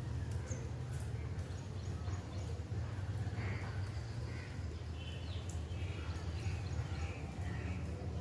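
Monsoon wind rumbling steadily on the microphone, with a run of short bird calls from about three seconds in.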